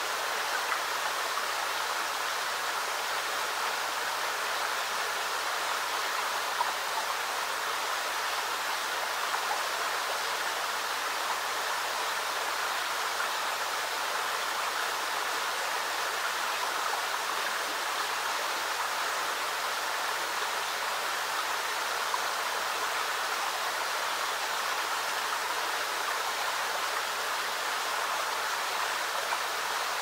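Creek water trickling steadily through the rocks of a small dam into a pool, an even, unbroken rush of running water.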